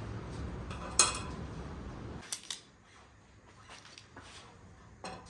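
Light metal clinks of small bolts and a steel plate being handled on a bare car firewall, with one sharper clink about a second in and a few softer ticks later. A low hum under them stops about two seconds in.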